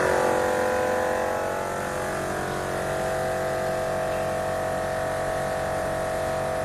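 Steady electric hum from the running machinery of an HTST milk pasteurizing plant, a little louder at first.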